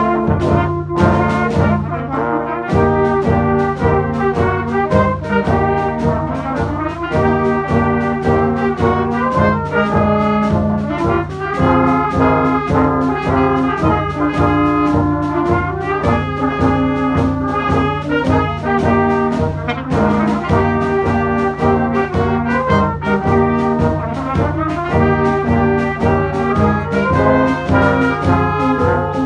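Youth brass band playing a march: cornets, trombones and euphonium in full harmony over a steady bass-drum beat, the players recorded separately at home and mixed together.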